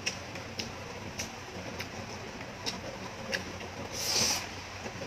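Close-up mouth sounds of eating yellow noodles: chewing with several short wet smacking clicks, then a slurp as a mouthful of noodles is sucked in about four seconds in.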